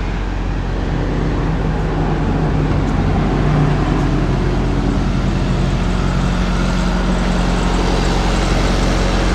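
Semi truck's diesel engine idling steadily, an unbroken low hum.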